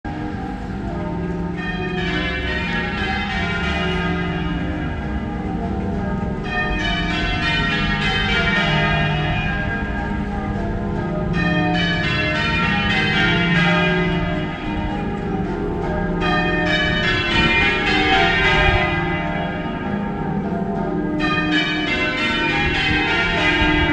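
Church bells ringing continuously, many strokes overlapping, with a brighter surge of strikes about every five seconds.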